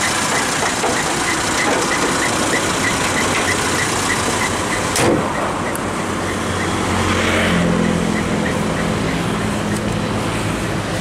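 Mitsubishi Kuda's 1600 cc engine, fitted with a Toyota Kijang 7K carburettor, running at idle with a light regular ticking about four times a second. About halfway through, the sound changes to a steadier, lower hum of the idling engine.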